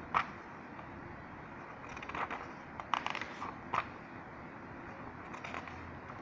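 A paper booklet being handled, its pages turned with a few brief rustles and soft taps scattered through, over a steady low hiss.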